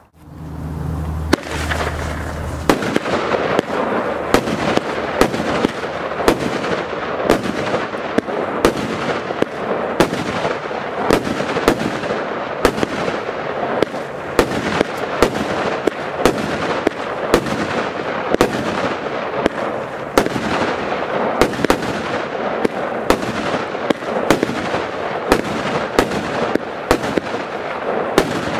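Nico Flash Bang Battery, a salute cake, firing its shots: a long, steady run of sharp bangs about one and a half a second, starting a few seconds in, with a continuous din of blasts and echoes between them.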